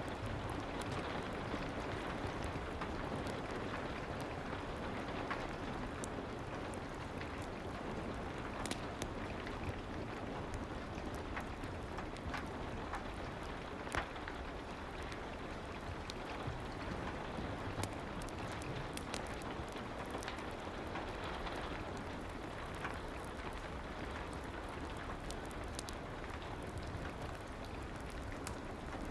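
Soft rain ambience with a fireplace crackling: a steady even hiss of rain with scattered sharp pops.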